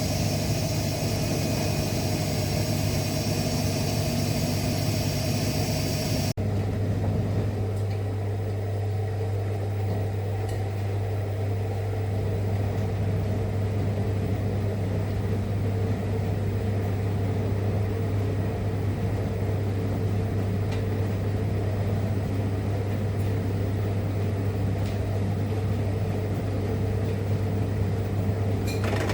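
Rex-Electrolux RJ 7160 TA washing machine running: a steady low hum with several high motor-whine tones over it. About six seconds in the sound changes abruptly and the high whine is gone, leaving only the steady low hum.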